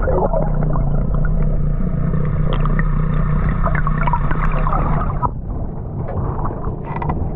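Muffled underwater rushing and gurgling of water around a submerged action camera, with a steady low hum and scattered small clicks. About five seconds in the camera comes out of the water and the sound suddenly opens up.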